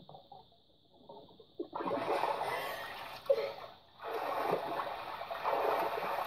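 Pool water splashing as a swimmer breaks the surface, with one short sharp peak about three seconds in, then more splashing and water pouring off as she hauls herself out over the edge near the end. Faint muffled sobs come from underwater before she surfaces.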